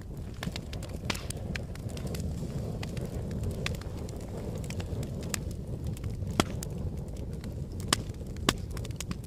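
Wood fire burning: a steady low rush of flames with frequent sharp crackles and pops. The three loudest pops come in the second half.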